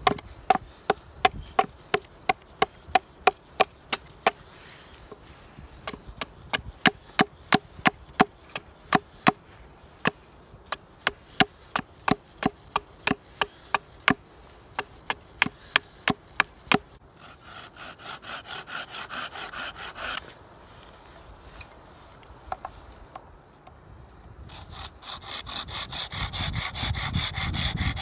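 Hatchet chopping into a stick against a log, about two sharp strikes a second. Later a small hand saw cuts through a stick with quick back-and-forth strokes, in two spells with a short pause between, the second near the end.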